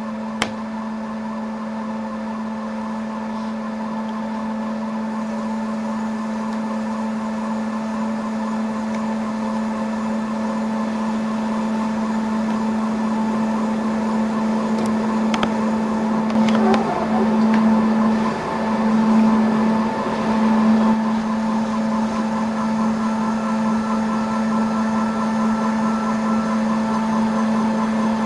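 Five-axis dental milling machine (Plus Mill S5) running steadily as a small end mill cuts abutments from a zirconia disc, a constant low hum with higher whining tones over it. A single sharp click just after the start, and a few seconds past the middle the sound grows louder and wavers before settling back.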